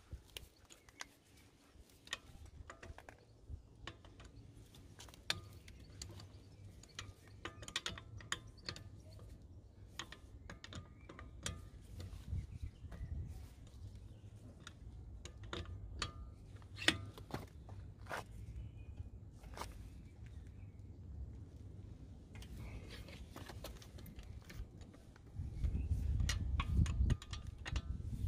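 A ratchet wrench on car wheel bolts clicks in short, irregular runs as the bolts are undone. A low rumble under it grows louder near the end.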